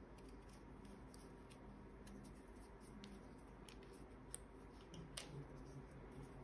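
Near silence with the faint handling sounds of crocheting thick cotton cord with a metal hook: a few soft clicks and rustles, the sharpest about four and five seconds in.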